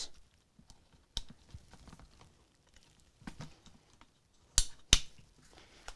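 Small metallic clicks and knocks as an AR rifle's takedown and pivot pins are pushed out of the receiver, with two sharp clicks in quick succession about three quarters of the way through.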